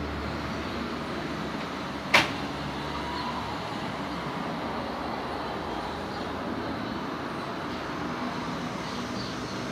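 City street ambience with steady traffic noise and a vehicle engine's low hum fading out in the first second or two. A single sharp bang, like a door or lid slamming, about two seconds in.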